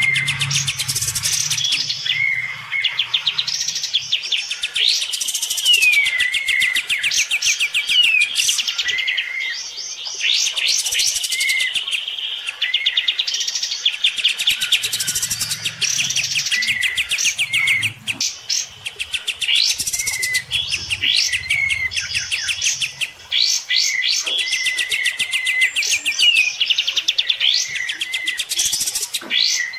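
Caged olive-winged bulbuls (kapas tembak) singing hard against each other: fast rattling trills and chatter, with short slurred whistled notes repeated over and over.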